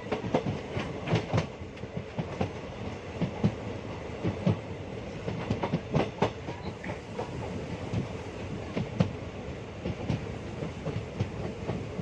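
ICF passenger coaches running on the rails: a steady rumble with wheels clattering irregularly over rail joints.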